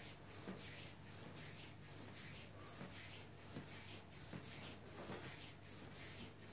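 Hands rubbing over the bare skin of a lower leg in quick massage strokes, a soft rhythmic swishing about two or three strokes a second.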